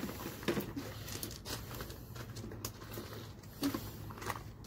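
Faint small clicks and rustling of bare wire ends being handled and tapped together, over a low steady hum.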